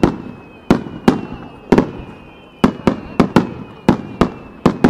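Starmine fireworks: a rapid, irregular string of about ten sharp aerial shell bursts, some in quick pairs, each trailing off in echo. A faint high whistling tone sounds under the bangs.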